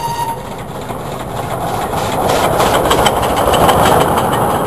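Ride-on park toy train running past on its track, its wheels clicking over the rail joints in a quick, even rhythm. The rumble grows louder toward a peak near the end, just after a steady horn tone cuts off at the start.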